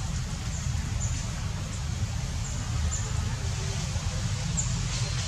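Outdoor ambience: a steady low rumble with faint, short, high chirps scattered through it every half second to a second.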